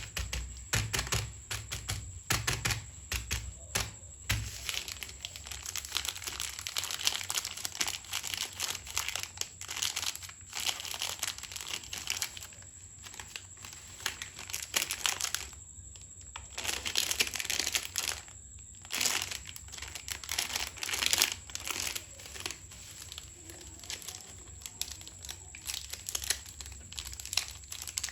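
Plastic snack packets being handled and torn open: irregular crackling and rustling, broken by a couple of short pauses past the middle.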